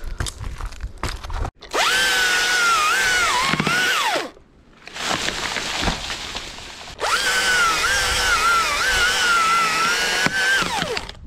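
Husqvarna chainsaw cutting through a dead pine trunk in two runs, its motor whining at full speed with the pitch dipping and wavering as the chain bites the wood. Each run starts and stops abruptly, with no idle between: one from a couple of seconds in, another from about seven seconds in to near the end.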